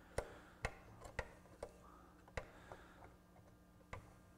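Metal levers of a BIC 960 turntable's record-changer mechanism clicking as they are worked back and forth by hand: a handful of sharp, irregular clicks. The levers are gummed up with old lubricant and being freed with WD-40, and one is not springing back on its return spring.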